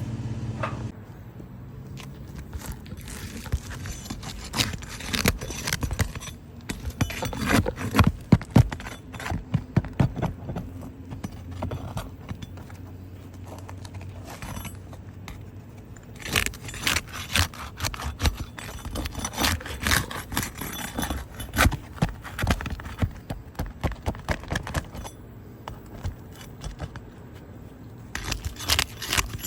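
Irregular metallic clinking, rattling and scraping, as of hand work on small metal parts, with a faint steady low hum underneath.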